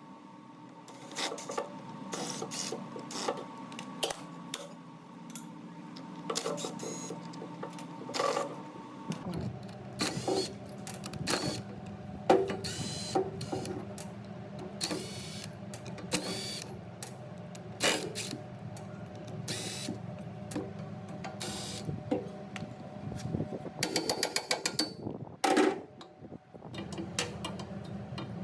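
Hand-tool work on metal machine parts: irregular clinks, clicks and knocks over a steady hum, with a quick run of ticks near the end.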